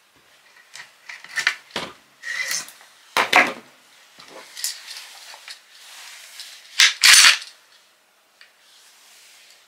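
Steel parts of a Century Arms WASR-10 AK-pattern rifle clicking and clacking as it is taken apart by hand, its parts fitting tightly. The loudest clacks come about three seconds in and again about seven seconds in.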